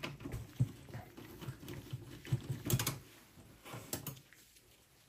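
Screwdriver working a small screw out of a desktop PC's steel chassis: scattered light clicks and taps, with a couple of sharper clicks a little under three seconds in and at about four seconds.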